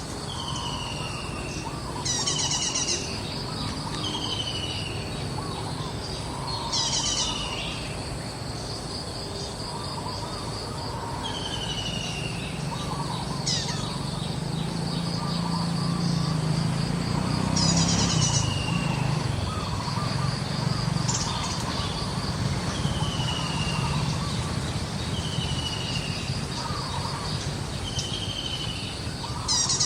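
Birds calling: short falling whistles repeat every second or two, with a few brief rapid trills, over a steady high insect drone. A low rumble swells about halfway through.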